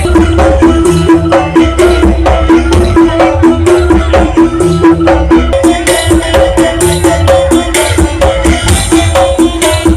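Very loud music with heavy bass and a fast, busy percussion rhythm, played through a large parade sound-system rig.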